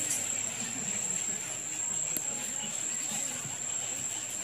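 Insects, likely crickets, holding one steady high-pitched drone, with faint voices murmuring underneath and a single light click about two seconds in.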